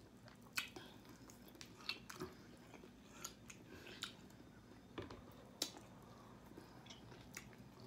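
Faint mouth and hand sounds of eating chicken wings: chewing and tearing meat off the bone, with about eight short, sharp wet clicks and smacks at uneven intervals.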